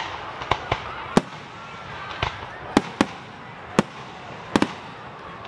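Aerial firework shells bursting: about ten sharp bangs at irregular intervals, two of them in quick succession near the end.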